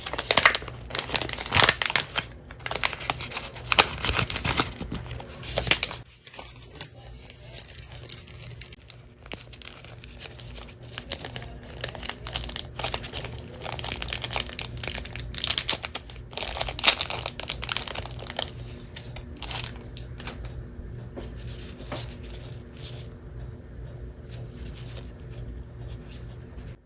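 Close-up crinkling, crackling and clicking of small plastic parts and film being handled and pried during a Joy-Con battery replacement, in a busy run of clicks that eases off near the end, over a faint steady low hum.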